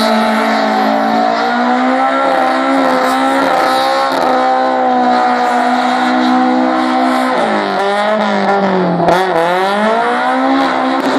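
Car doing skids: its engine is held at high revs while the spinning rear tyres squeal. About three quarters of the way through the revs drop and then climb back up.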